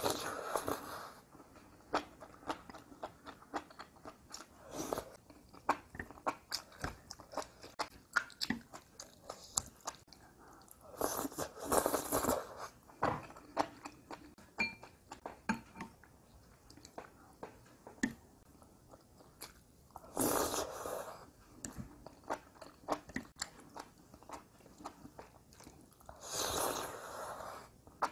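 Close-up mouth sounds of eating spicy enoki mushrooms: steady chewing with many small wet clicks, broken by four slurps of about a second each as the mushroom strands and sauce are sucked in, the first right at the start.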